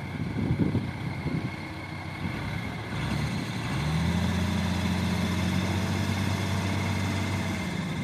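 Backhoe loader's diesel engine running, with uneven rumbling at first; about three and a half seconds in the engine speeds up and holds a steady tone as the machine reverses away from the dump truck.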